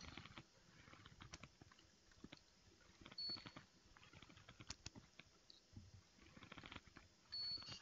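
Near silence in a cinema: faint scattered clicks and small rustles, with two short high-pitched beeps about four seconds apart.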